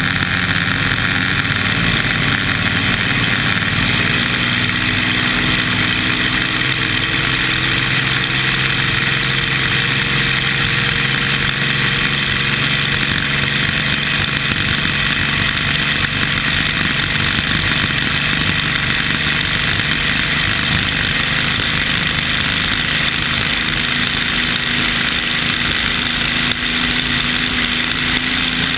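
Vintage Oh Boy! Oberto racing hydroplane's engine running at speed, holding steady with slight drifts in pitch, under a loud rush of wind and spray.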